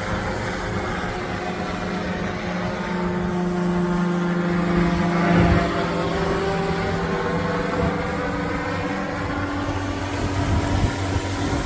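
Low-flying aircraft passing overhead, its engine drone swelling to a peak about five and a half seconds in, then easing away.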